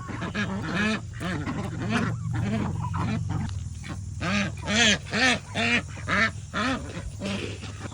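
Domestic ducks quacking over and over, a close run of short calls that spaces out to about two a second in the second half.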